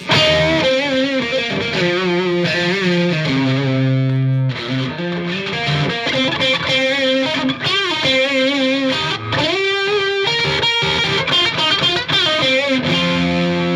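Distorted electric guitar from a Strat-style partscaster with single coils and a humbucker through a Marshall JVM210 combo amp, played on its overdriven orange channel: sustained lead notes with wide vibrato and string bends.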